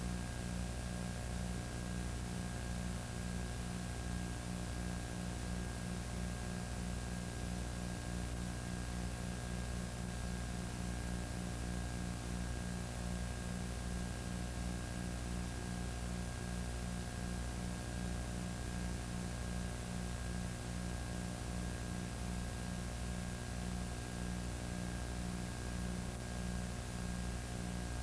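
Steady electrical hum with a constant hiss and no other sound: the noise floor of a recording with no real audio.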